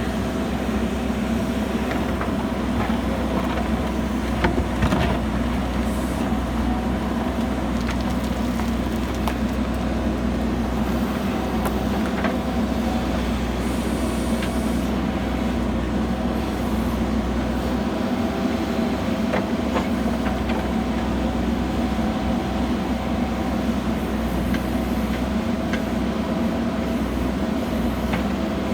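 JCB backhoe loader's diesel engine running steadily under work, with a few brief knocks, the loudest about five seconds in.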